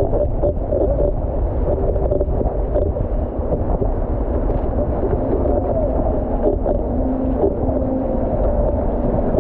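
Wind buffeting the camera microphone over rushing, churning water as an outrigger canoe is paddled hard through a motorboat's wake. A wavering tone runs underneath the whole time.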